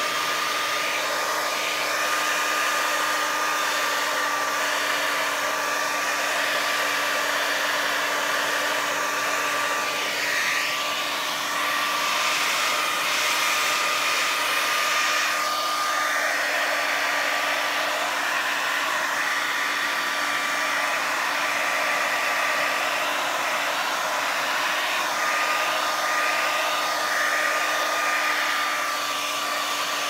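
Handheld Revlon hair dryer running steadily, blowing air onto wet acrylic paint: a constant rush of air with a steady hum and whine.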